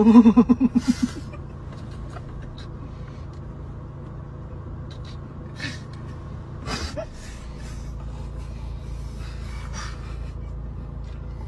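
Steady low rumble of a car cabin, opening with a short pulsing burst of voice and later broken by a few brief breathy bursts of stifled laughter, about five to seven seconds in.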